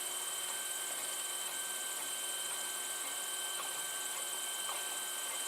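Steady electrical hum and hiss with a thin, high, unchanging whine, from running electronics and cooling fans, with a few faint ticks.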